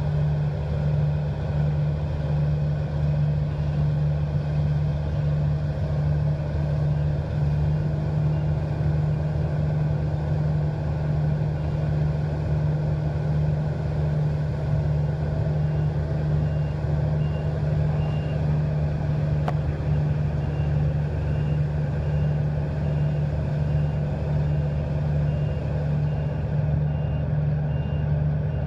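Claas combine harvester and Ford 7710 tractor engines running steadily under load as the combine unloads grain into the trailer, a loud constant low drone. A faint high beep repeats through the second half.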